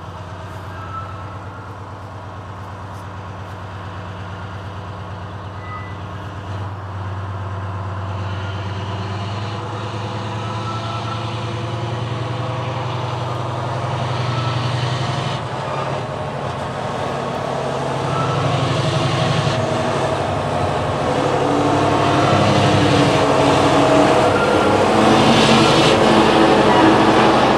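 Colas Rail Freight Class 70 diesel locomotive with a GE PowerHaul V16 engine pulling away from a passing loop under power with a loaded rail carrier train. Its engine drones steadily and grows louder as it approaches, and wheel and wagon rattle builds near the end as it passes.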